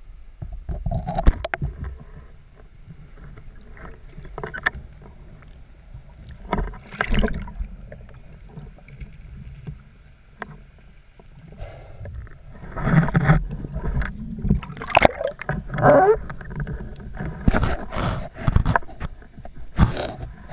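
Underwater recording from a camera mounted on a speargun: muffled water rush with irregular knocks, scrapes and swishes of handling against the camera, growing busier and louder from about halfway through.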